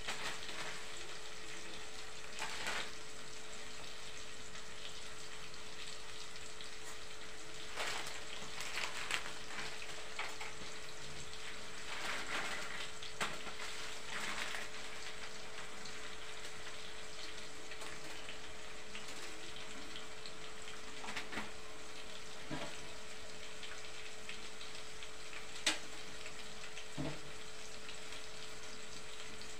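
Steady hiss of food frying in a pot on a gas stove, with occasional scrapes and taps of a stirring utensil against the pot, the sharpest one near the end.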